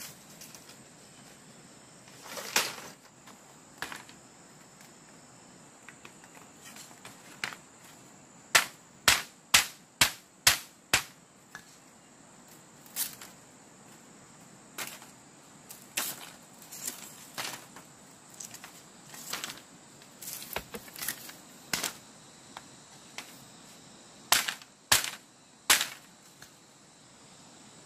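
Irregular sharp cracks and knocks of bamboo being split and worked by hand, with a quick run of five cracks about two a second near the middle.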